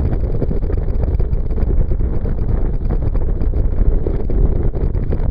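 Wind buffeting the microphone over the rush of a small boat under way across choppy water: a loud, rough, unbroken noise, heaviest in the low end.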